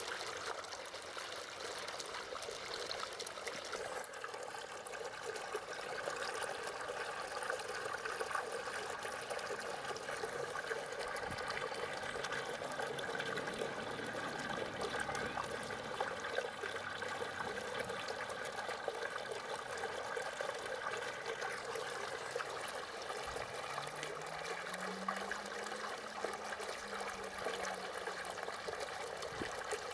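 Steady trickling, running water.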